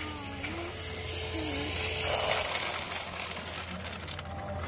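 Bank coin-counting machine running with a steady low hum while loose coins clatter through it as they are pushed into its tray.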